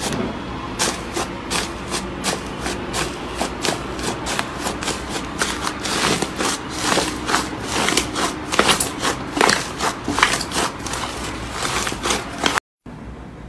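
Hands squashing and kneading thick, fluffy slime, giving a dense run of soft crackles and pops, several a second. The sound cuts out abruptly near the end.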